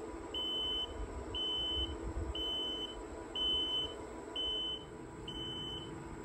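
IC card charging machine beeping, a high half-second tone repeating about once a second over a steady low hum: the prompt to take the IC card out once the charge is done.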